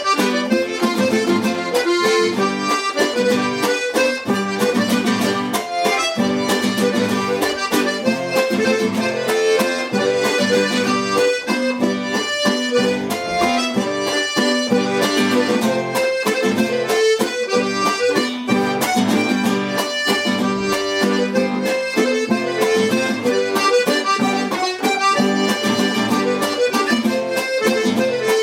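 An accordion playing a waltz tune without a break.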